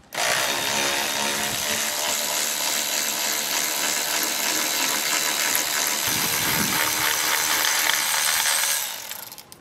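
Milwaukee cordless electric ratchet running continuously, spinning out a dog bone motor mount bolt, with a steady motor whine for about nine seconds before it stops near the end.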